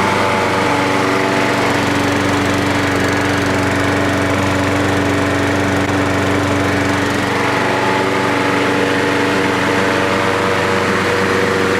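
Troy-Bilt walk-behind lawn mower's small single-cylinder engine running steadily at a constant speed.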